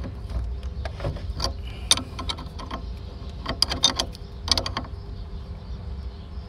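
Metal wrench working the nut on a car battery terminal clamp as it is tightened, giving several short runs of quick metallic clicks.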